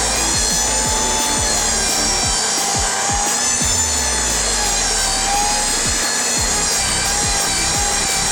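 Power saw cutting through a timber sleeper, running steadily through the wood.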